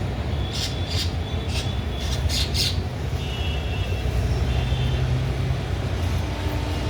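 Parrots giving several short, harsh squawks in the first three seconds, then a few brief thin chirps. A steady low rumble of road traffic runs underneath.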